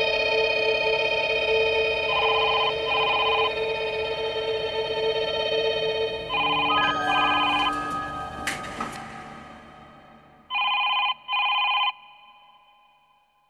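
Telephone ringing in double rings, three rings about four seconds apart, over a steady droning music bed. The drone fades away over the second half, with a single sharp hit about eight and a half seconds in, leaving the ringing alone at the end.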